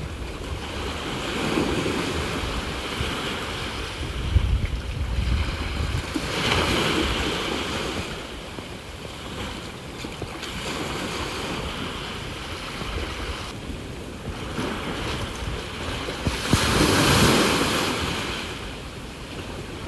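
Ocean waves surging and washing on the shore, swelling about two seconds in, again around six seconds, and loudest near the end, with wind rumbling on the microphone in between.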